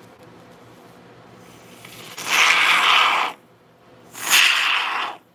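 Aerosol can of gaps-and-cracks expanding foam sealant spraying through its straw nozzle into a silicone mould cavity: two hissing spurts of about a second each.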